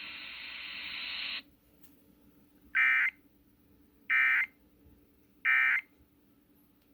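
A steady hiss of static that cuts off about a second and a half in, then three short, identical warbling digital data bursts about 1.3 s apart: the Emergency Alert System end-of-message (EOM) code, marking the close of a broadcast severe thunderstorm warning.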